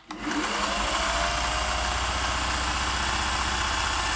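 Singer 401A sewing machine running, stitching a decorative stitch pattern: the motor starts just after the beginning and speeds up over about the first second, then runs steady with a fast, even needle rhythm.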